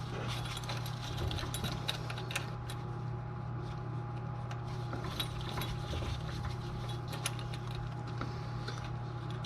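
Light metallic clicks and ticks as a new inner tie rod is turned by hand onto the steering rack, its lock bracket seating in the slots, over a steady low hum.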